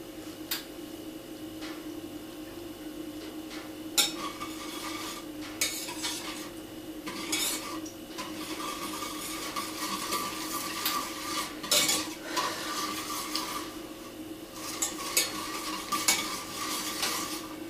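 Wire balloon whisk stirring milk, butter and sugar in a stainless steel saucepan, the wires scraping and now and then clinking sharply against the pan. A steady low hum runs underneath.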